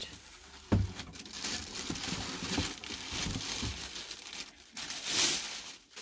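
Plastic bag wrapped around a football helmet crinkling and rustling as the helmet is pulled up out of its cardboard display box, with a single thump a little under a second in and the loudest crinkle near the end.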